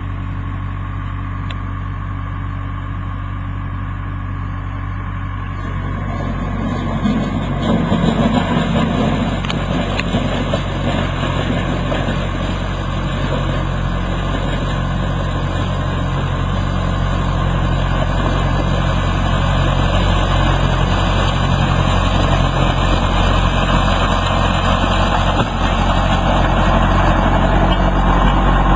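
Skid steer engine running steadily; about six seconds in it gets louder and busier, as the machine goes to work under load.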